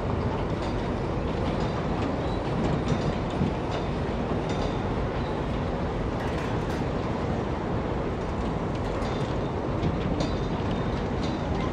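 Steady low rumble and hiss, with a few light metallic clinks of firing tools at the firehole of a Sentinel steam waggon's vertical boiler as the fire is lit.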